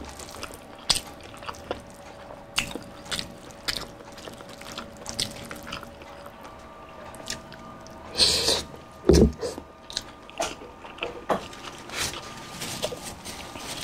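A person eating palabok rice noodles in sauce: wet chewing and mouth sounds with small clicks of a fork in the noodles. A louder wet mouth sound comes a little past eight seconds in, followed by a short low thump.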